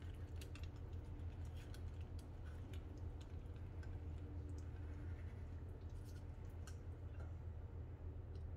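Light, irregular clicks of metal tongs knocking against a stainless ladle and pan while twisting bucatini into a nest, over a steady low background hum.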